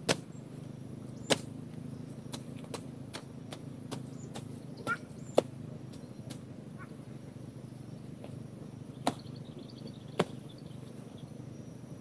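Machete slashing through weeds and brush: about a dozen sharp, irregular cuts and snaps, the loudest about five seconds in, over a steady low hum.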